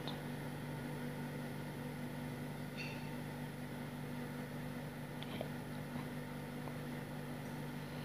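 Hampton Bay Callaway II ceiling fan running on medium speed: a steady low motor hum with an even whoosh, and a couple of faint clicks.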